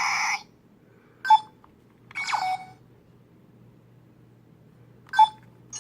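Kamen Rider Den-O toy phone from the C.S.M. belt playing its Imagin sound effects through its small speaker. A short button beep is followed by a brief sound clip with a falling sweep, then a quiet gap and another beep near the end.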